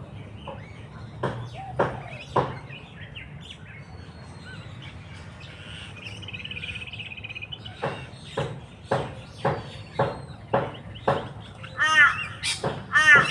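Wild birds calling: a run of short sharp calls repeating about every half second, a brief high trill a little past the middle, then louder harsh repeated calls near the end.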